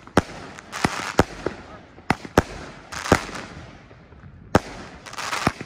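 Mad Fire Box firework cake firing shot after shot: about nine sharp bangs a few tenths of a second to a second and a half apart, each followed by a hiss as the shells break into stars.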